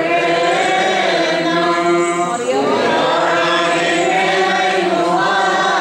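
A group of voices chanting a Malankara Orthodox liturgical hymn together in long, held notes.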